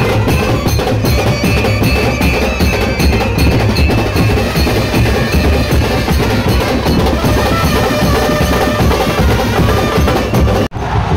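Street brass band playing loudly: drums beaten hard and hand cymbals clashing in a dense beat, with trumpets and saxophones sounding over them. The sound cuts off abruptly near the end.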